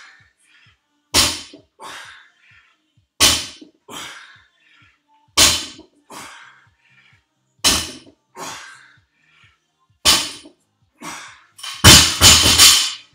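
Barbell loaded to 275 lb with rubber bumper plates meeting a rubber gym floor on repeated deadlifts: a heavy thunk about every two seconds, each followed by a lighter knock, five times. Near the end the bar is dropped and bounces, giving a quick cluster of louder bangs.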